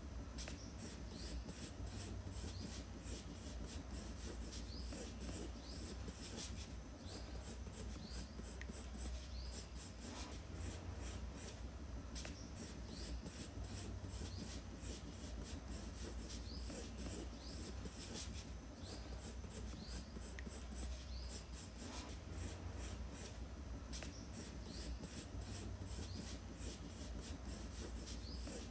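Coloured pencil scratching on sketchbook paper in many short, irregular strokes, over a low steady hum.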